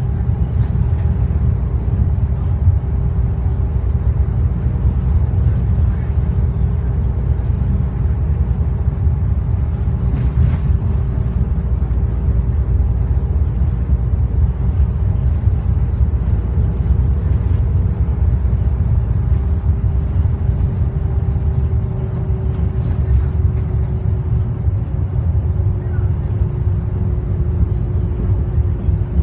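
Cabin sound of a Bustech ADi bus with a Cummins ISL straight-six diesel driving at a steady road speed: engine and road rumble, with a steady whine that sinks a little in pitch in the last several seconds.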